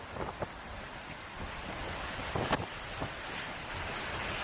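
Steady wind rushing over the microphone, growing slowly louder, with a few sharp knocks; the loudest knock comes about two and a half seconds in.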